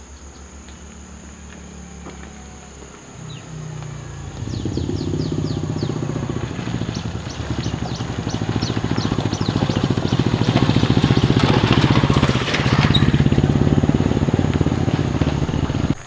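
Motor vehicle engine running steadily, growing louder over the first few seconds and loudest in the second half, then cutting off suddenly at the end. Faint high chirps sound above it early on.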